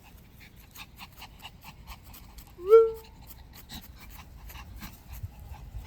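Small pet dog panting rhythmically, about four breaths a second, with one short rising whine about halfway through.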